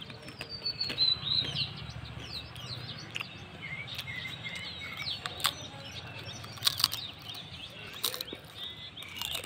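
Small birds chirping repeatedly around, with a few short, sharp crunches of potato chips being bitten close by.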